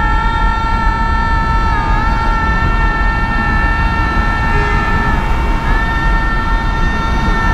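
Car driving through a road tunnel: a steady low road rumble with a loud, horn-like high tone held throughout, which wavers briefly twice.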